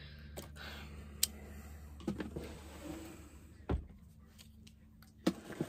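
Small clicks and knocks of cosmetic bottles and items being handled on a table, with one heavier knock a little past the middle, over a steady low hum.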